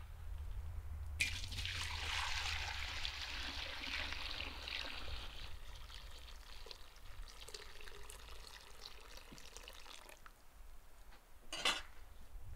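Cloudy liquid poured in a steady stream from a steel bowl into a large cauldron, splashing in abruptly about a second in and tapering off after about nine seconds. A single short knock follows near the end.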